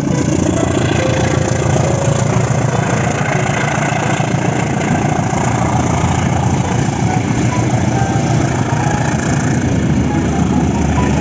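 Diesel locomotive engine running steadily, a loud, even rumble.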